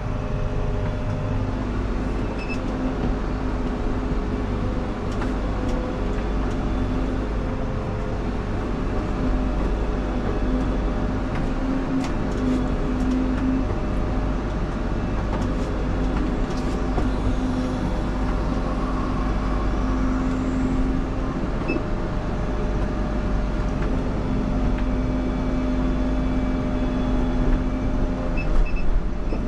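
Combine harvester running steadily, an even machine drone with a constant hum.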